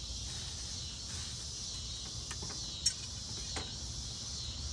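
Cicadas droning, a steady high-pitched buzz, with a few faint clicks and a sharper knock about three seconds in.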